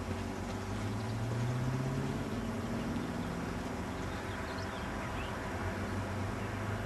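BMW E38 740i's V8 engine idling steadily, its pitch rising slightly about a second in and then settling back.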